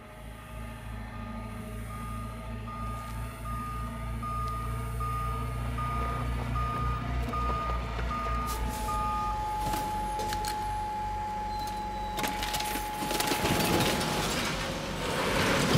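Large truck's engine rumbling and growing louder, with a steady series of short reversing-alarm-style beeps, about one and a half a second, for the first nine seconds. A long held tone follows, and a loud hiss like an air-brake release comes near the end.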